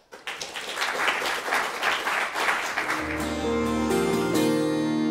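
Audience applauding, a dense patter of claps. About three seconds in, instrumental outro music with steady held notes comes in over it and takes over.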